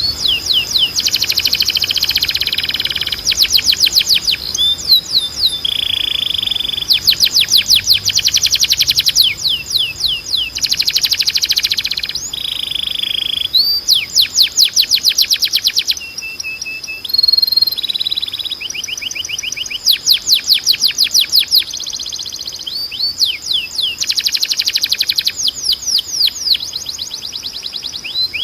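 Domestic canary of the Timbrado breed singing: fast trills of rapidly repeated sweeping notes, each run lasting a second or two, alternating with short stretches of flatter held notes. A thin, steady high tone runs underneath.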